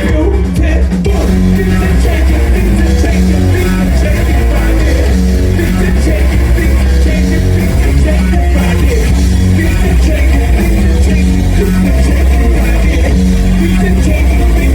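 Live rock band music played loud through a club PA, with heavy sustained bass notes and electric guitar.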